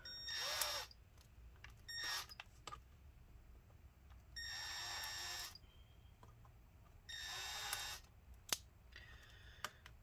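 Small electric precision screwdriver whirring in four short bursts, backing out tiny laptop keyboard screws. Two sharp clicks come near the end.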